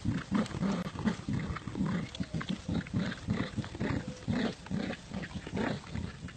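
Dog growling in play while tugging on a toy in a tug-of-war: a low growl broken into quick, irregular pulses.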